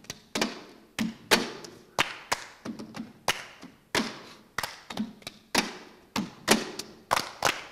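Tin cans struck as percussion, playing a steady rhythm of hits about two a second with lighter taps between, each hit ringing briefly.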